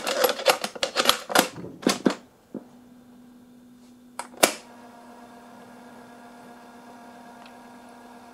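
Plastic clicks and rattles as a cassette is loaded into a 1980s Fisher-Price toy cassette player and its door shut, then sharp clunks of its piano-key buttons being pressed about two and a half and four and a half seconds in. After that the deck runs with a steady low hum.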